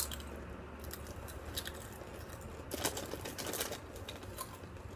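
Crunching as spicy rolled tortilla chips (Doritos Dynamite) are chewed, with scattered crisp cracks and a denser run of crunching about three seconds in.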